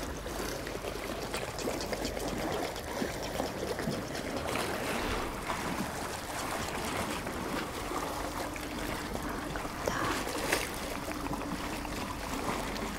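Small sea waves lapping and trickling against the shore, a steady wash of water with little splashes.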